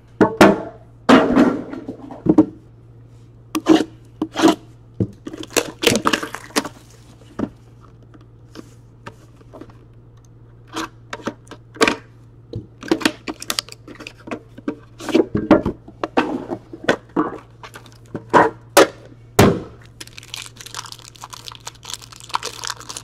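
Trading-card packaging handled by hand: a string of sharp clicks, taps and knocks as a cardboard card box is worked open, then a silver foil wrapper crinkling and tearing near the end.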